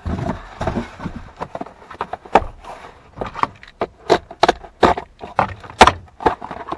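A cardboard shipping box being handled and opened by hand: irregular sharp snaps, crackles and rustling of the cardboard and packaging, thickest in the second half.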